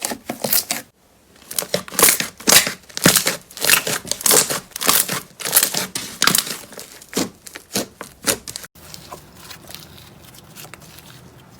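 Slime being squeezed and pressed by hand, giving quick crackling, crunchy pops in fast succession. About nine seconds in it cuts to a quieter stretch with only a few soft pops.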